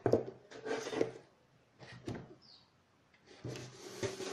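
Craft supplies being handled on a tabletop: a few light knocks as metal scissors are picked up and set down in the first two seconds, then a brief pause, then soft rubbing and handling noise.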